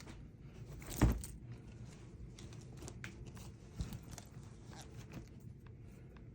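Handling noise: one sharp thump about a second in, then faint rustling with scattered small clicks and a softer knock.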